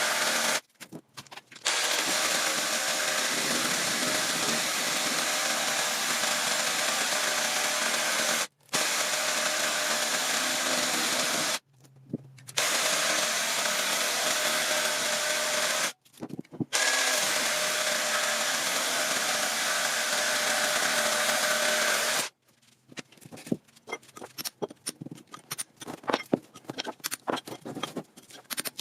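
A power tool running in long steady runs, stopping briefly four times, then switched off about 22 seconds in, after which come light, irregular clicks and rattles.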